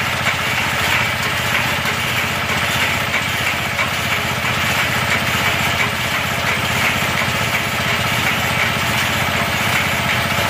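A 12 HP engine running steadily at a constant speed, driving an improvised steel-drum cement mixer.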